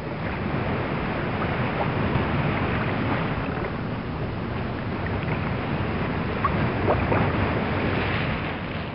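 Ocean surf: waves washing on a beach, a steady rushing noise.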